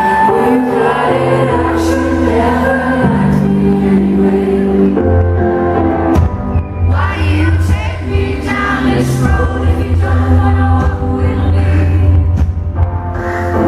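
Live band performance: a sung melody over held chords, with a deep bass note coming in about five seconds in.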